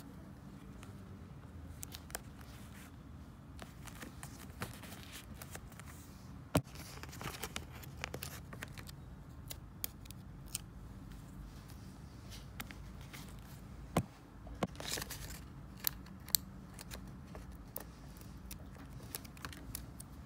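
Scissors cutting paper and paper being handled: scattered snips, rustles and a few sharp clicks, over a steady low hum.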